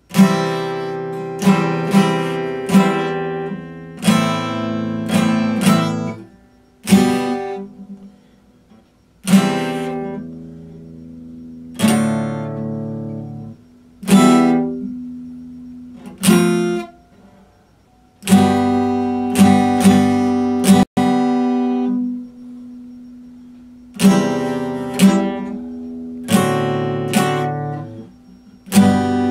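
Epiphone acoustic guitar played solo: chords struck and left to ring, in short phrases of several chords with brief pauses where the sound dies away.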